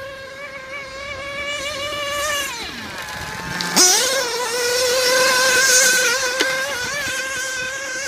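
Modified Picco Boost nitro engine in a 1/8-scale buggy running at high revs with a high-pitched whine. About three seconds in the revs fall away to a low note as the throttle is lifted, then snap straight back up to full revs and hold, loudest as the buggy passes close.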